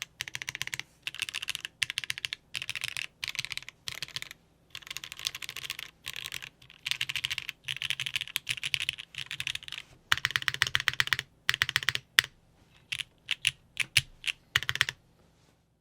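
Typing on a custom TKL mechanical keyboard with lubed Hyperglide Cherry MX Black linear switches in a top-mounted aluminum plate, under GMK keycaps: quick runs of keystrokes broken by short pauses, thinning to a few separate key presses near the end before stopping.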